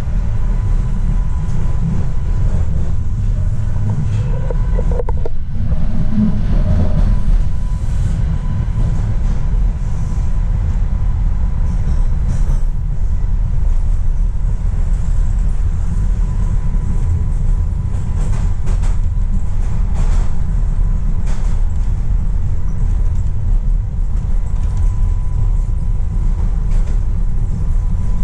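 Subway train heard from inside the car while running between stations: a steady low rumble of wheels and running gear, with a faint steady whine above it.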